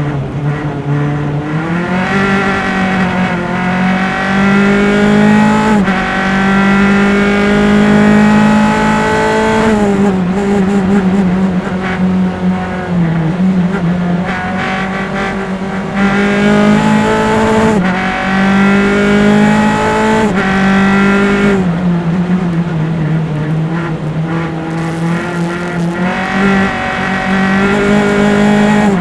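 Onboard sound of a single-seater formula race car's engine at racing speed. The engine pitch climbs under acceleration, drops sharply at each upshift, and slides back down under braking and downshifts, in a cycle repeated several times around the lap.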